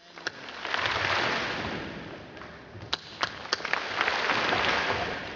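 Audience clapping and applauding in a large hall, swelling twice, with a few sharp cracks about three seconds in.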